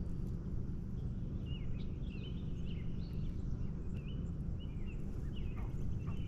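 Birds calling in a series of short, bending whistled chirps, over a steady low background rumble.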